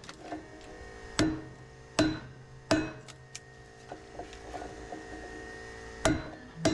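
Hammer blows on a scrap transformer to knock its steel core loose: three sharp metallic strikes about a second apart, then a pause with a few light taps, and two more strikes near the end, each ringing briefly.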